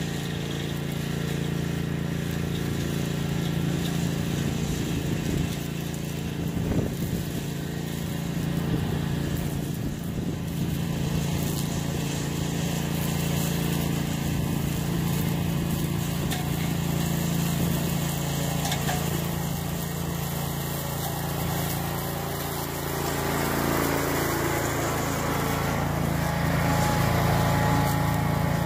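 Engine of a homemade walk-behind brush mower running steadily, a little louder over the last few seconds.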